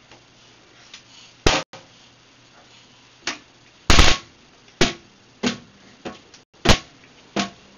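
Toilet lid banging against the seat: about eight sharp knocks, one a little over a second in, then a quicker irregular run from about three seconds, the loudest about four seconds in.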